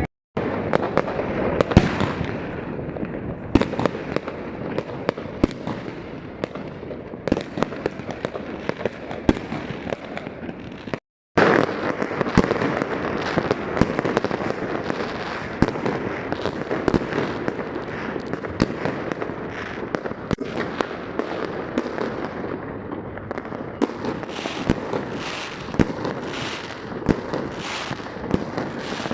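Fireworks going off: a dense, continuous crackle of firecrackers with many sharp bangs. The sound drops out completely for an instant twice, once near the start and once about eleven seconds in.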